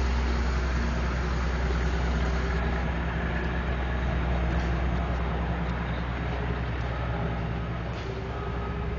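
A heavy vehicle engine idling: a steady low drone that eases slightly near the end.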